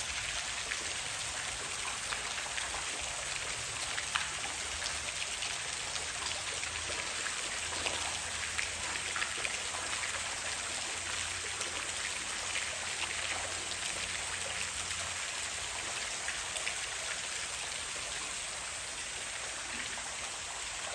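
Steady hiss of falling water, with many small patters and drips all through.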